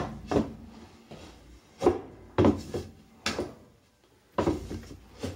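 Wooden board clunking and scraping against the washer tub and crossboards as it is turned to twist a steel cable on a homemade wash-plate puller, about eight irregular knocks, each with a short ring from the metal tub.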